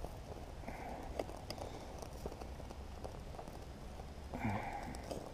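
Faint irregular ticks and crackles from a small tin-can burner of alcohol-soaked coffee grounds burning while a stick stirs it. There are two short soft hisses, about a second in and near the end.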